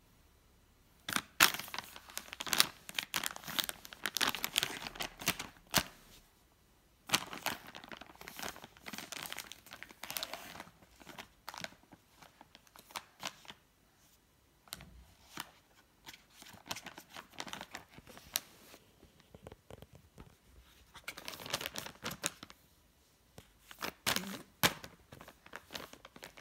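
Plastic wet-wipes packet crinkling as a baby handles it, in several bursts of irregular crackling with short quiet pauses between them.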